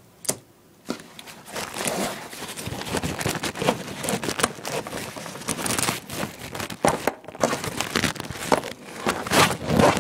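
Rustling and crinkling of modular power-supply cables and their fabric storage bag being handled, with many small clicks and scrapes. It starts about a second in.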